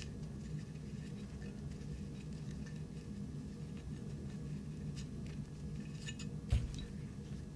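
Faint scraping and small ticks as a dry cleaning patch on a rod is worked into a tunnel in a Colt 1911 slide to wipe out solvent, with one sharper knock about six and a half seconds in, over a steady low hum.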